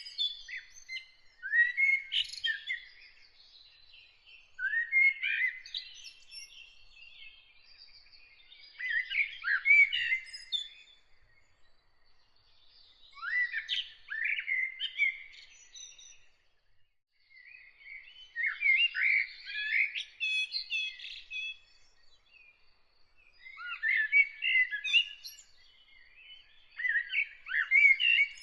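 A songbird singing varied warbling phrases, one every three to five seconds, each lasting one to three seconds with pauses between. A faint, thin high note from another bird runs in some of the gaps.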